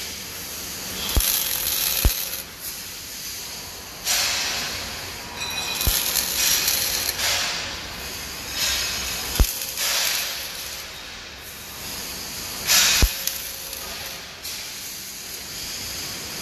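Electric arc welding on a steel frame: a crackling hiss that starts and stops in short runs of one to two seconds as short welds are laid, with a few sharp clicks between runs.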